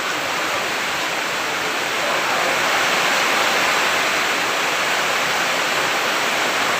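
Heavy rain pouring down in a dense, steady hiss that swells slightly about two seconds in.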